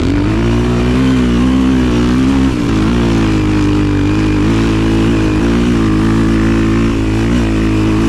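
Single-cylinder trail motorcycle engine running steadily under way, its pitch wavering a little, with a brief dip and change about two and a half seconds in.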